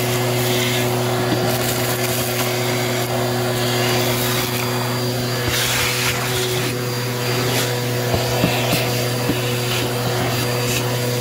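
Bissell vacuum cleaner running steadily through its crevice tool, a constant motor hum under rushing air. Scattered small clicks and rattles, more of them in the second half, from grit and debris being sucked up the tool.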